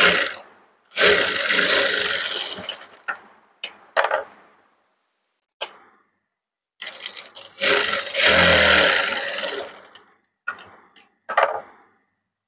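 Electric sewing machine stitching a seam joining two fabric pieces, in two runs of about two seconds each. Short clicks and knocks come between and after the runs as the fabric is stopped and repositioned.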